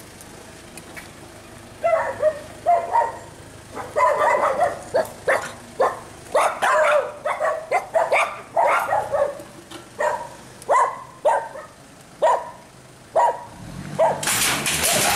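A dog barking over and over in irregular runs of short, sharp barks. Near the end a loud, even rushing noise comes in.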